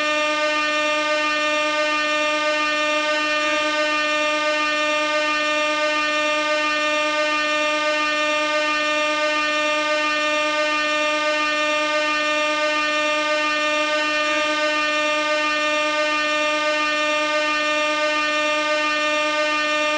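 Gas air horn sounding one continuous, loud blast at a single steady pitch, rich in overtones and unbroken throughout.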